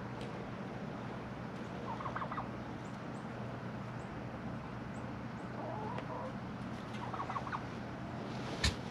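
Turkey tom gobbling, two short rattling gobbles about two seconds in and again about seven seconds in. A single sharp knock near the end.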